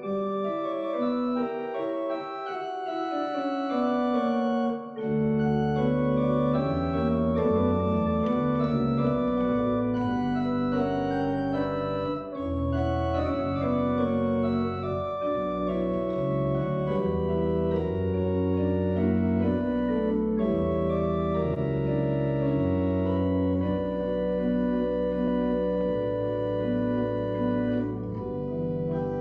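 Church pipe organ playing slow, sustained chords. The line moves step by step, and a deep bass line joins about five seconds in.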